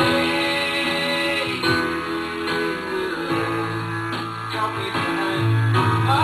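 Background music: guitar-led instrumental with plucked and strummed guitar.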